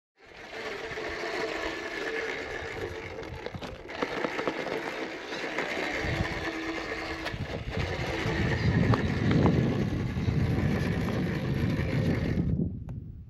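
Steady road and engine noise of a moving car, with a heavier low rumble in the second half; it starts and cuts off abruptly.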